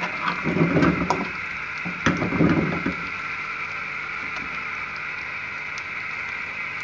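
Crushed garlic sizzling gently in a little oil in a steel karahi, frying until it turns translucent. A slotted metal spoon scrapes and stirs through it twice in the first three seconds, with a few clicks against the pan, then the steady sizzle carries on alone.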